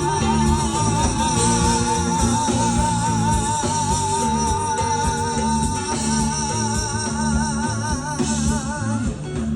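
Latin dance music from a band over a sound system: a steady bass and drum beat under a long held high melody note with an even vibrato, which breaks into shorter phrases near the end.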